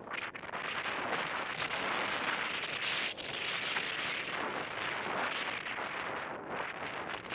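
Skis hissing and scraping through snow, with wind rushing over the microphone of a head-mounted camera as the skier moves downhill. The noise dips briefly a few times.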